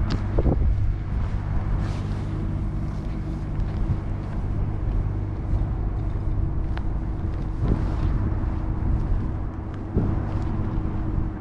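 Steady low drone of idling heavy engines, with a constant low pitched hum and a few faint knocks.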